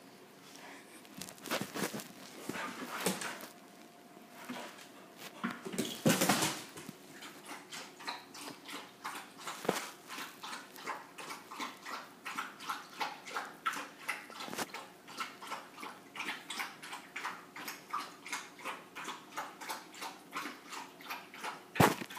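A puppy scrambling and knocking about on a wooden floor for the first several seconds, then a dog lapping from a steel bowl in an even rhythm of two or three laps a second. A sharp knock near the end.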